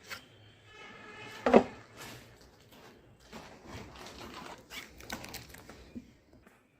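Furniture-assembly handling noise while screwing the base stands onto a flat-pack coffee table: a brief squeak, a sharp knock about a second and a half in, then scattered small clicks and rattles of screws and panels.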